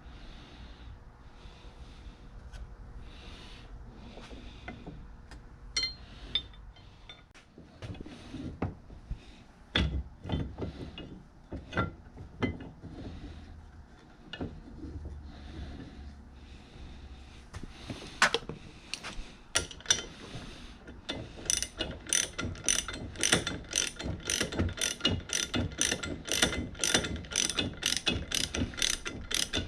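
Hand tools working on a metal bench vise: scattered metal clicks and knocks, then from about two-thirds of the way in a steady run of quick ratcheting clicks, about two to three a second.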